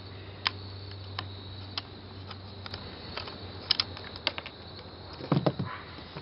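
Small scattered clicks and taps of a flathead screwdriver and fingers handling a tiny screw at the front of a plastic-and-metal airsoft gun, followed about five seconds in by a louder knock as the gun is laid down on wooden deck boards.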